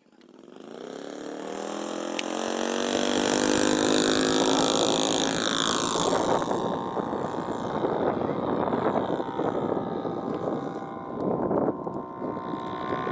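Radio-controlled Bf-109 model's Laser 300 V-twin four-stroke engine opening up for a takeoff run: the sound builds and rises in pitch over the first few seconds, drops in pitch as the plane passes, then runs on steadily as it climbs away.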